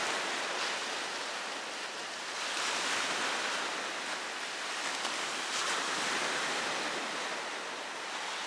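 Black Sea surf: small waves breaking and washing up the beach, a steady rush that swells a couple of times as waves break.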